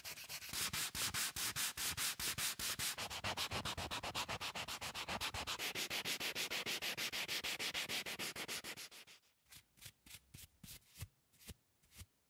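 Hand sanding: fast, even back-and-forth strokes of abrasive paper, several a second, that stop about nine seconds in and give way to a few slower single strokes near the end.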